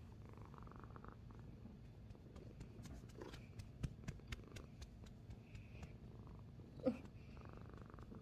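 A tabby cat purring steadily right against the microphone, with a few clicks and rustles of fur and clothing about three to four seconds in and a brief vocal sound near seven seconds.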